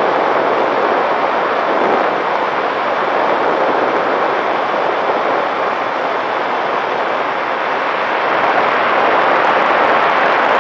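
Steady loud rush of airflow and propeller noise on the onboard camera of a small fixed-wing UAV in flight, growing a little louder near the end.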